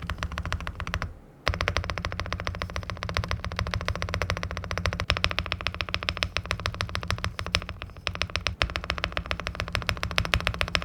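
Fast, continuous typing on an Aula F75 mechanical keyboard with linear switches: a dense clatter of keystrokes, about ten a second, with a brief pause about a second in.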